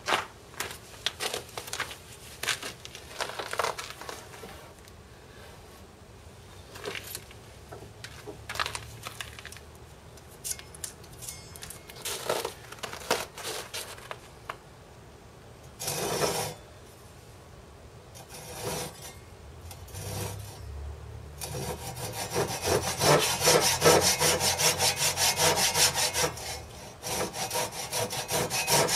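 Japanese dozuki pull saw cutting by hand through a length of dimension lumber. At first there are scattered short strokes and knocks, then about two-thirds of the way through it settles into a steady run of fast, louder sawing strokes.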